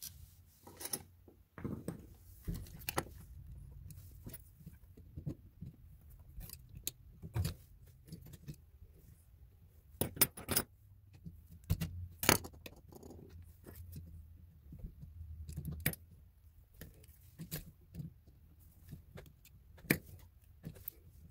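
Irregular small metallic clicks, clinks and scrapes of a screwdriver and an old wall receptacle being handled while a wire is worked loose from its terminal.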